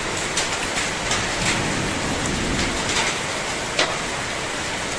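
Heavy rain pouring steadily, with scattered sharp ticks of hailstones striking about once a second.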